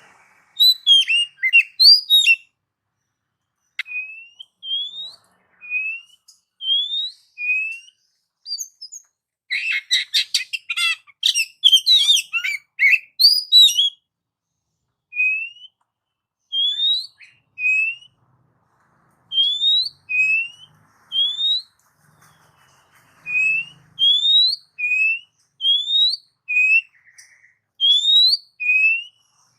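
Oriental magpie-robin (kacer) singing: a string of short rising whistled notes, with a burst of rapid, varied notes about ten seconds in.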